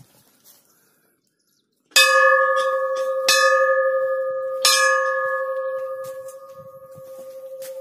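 Large hanging temple bell struck three times, about a second and a half apart, each clang ringing on in a long, slowly fading hum with a slight pulsing.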